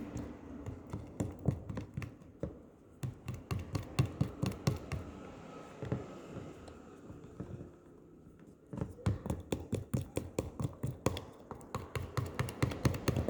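Slime of glue and activator being stirred in a container, the stirring utensil knocking against the sides in quick, uneven clicks and taps, with a pause of a couple of seconds past the middle before they pick up again.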